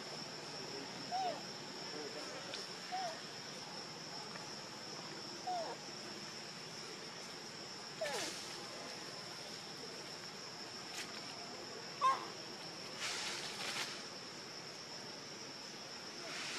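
Forest insects droning steadily at one high pitch, with a few short arching chirps or calls and a couple of brief rustling bursts near the middle and toward the end.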